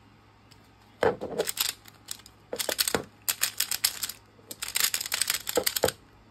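Plastic Pyraminx puzzle being turned by hand: quick runs of sharp plastic clicks and clacks in four or so bursts, with short pauses between.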